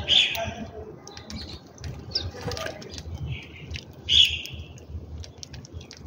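Laughing doves' wings flapping as they fly down to feed, two loud flurries, one near the start and one about four seconds in, with short high chirps from house sparrows in between.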